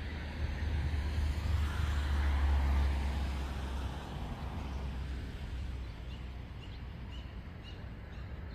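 A road vehicle passing, its rumble and road noise swelling to a peak about two and a half seconds in and then fading away. Faint short bird chirps repeat through the second half.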